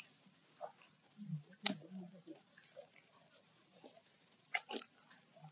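Animal sounds: short high chirps recurring every second or so, a brief low grunt-like sound just over a second in, and a few sharp clicks.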